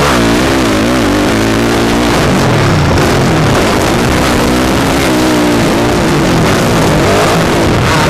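Dirt bike engine heard from on board while racing a motocross track, its pitch rising and falling over and over as the rider works the throttle and shifts, over a constant rush of noise.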